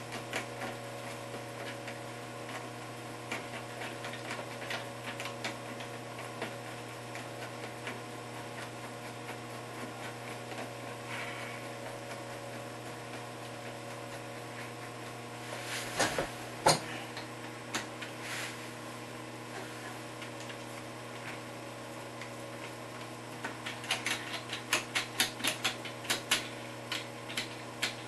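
Hand ratcheting screwdriver clicking in runs as it drives toilet-seat hinge bolts, with two louder knocks a bit past halfway and a dense run of rapid clicks, about four or five a second, near the end. A steady low hum runs underneath.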